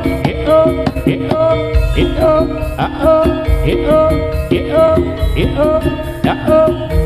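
Instrumental jaranan accompaniment: a Javanese percussion ensemble playing drums and repeated melodic notes in a steady, driving rhythm.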